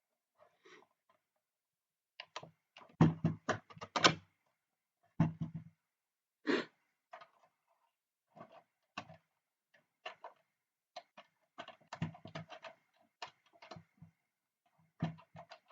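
Irregular clicks, knocks and thunks of a bench power supply's parts being handled and fitted back together, in clusters with short pauses.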